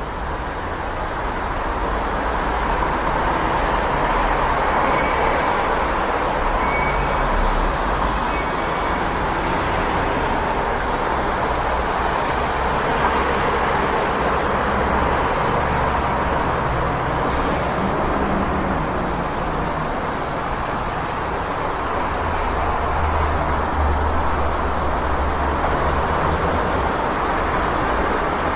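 City street traffic: a steady wash of passing vehicles with low engine rumble, growing a little louder over the first few seconds.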